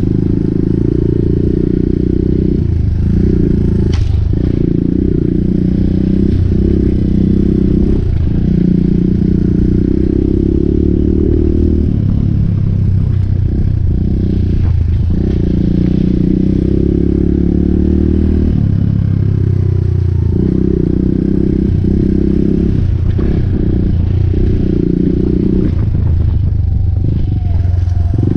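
Suzuki DR200's single-cylinder four-stroke engine running under way on a rough dirt trail. Its note dips briefly every few seconds as the throttle is eased and picks up again, with a sharp click about four seconds in.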